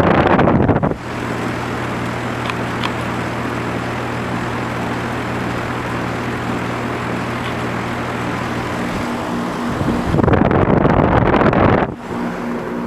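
2001 Trane XE1000 heat pump outdoor unit running in heating mode: a steady hum of the compressor and outdoor fan. Two loud bursts of rushing noise cover it, one at the start and one about ten seconds in.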